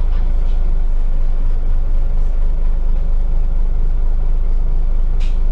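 Scania OmniCity double-decker bus engine idling steadily, a low hum heard from inside the upper deck, with a brief hiss near the end.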